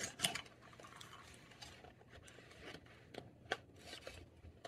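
Faint rustling of a speedcube's cardboard box and clear plastic display case being handled as the cube is unpacked, with a few light plastic clicks, the sharpest about three and a half seconds in.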